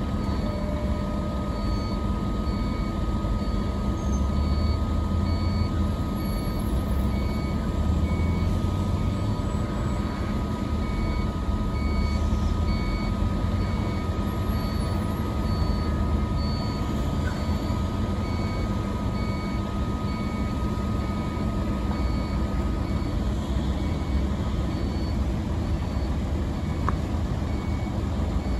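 Hyundai HX520L tracked excavator's diesel engine running under load with the hydraulics working, while a warning beeper sounds in a steady repeating pattern. A thin steady whine runs alongside and stops a few seconds before the end.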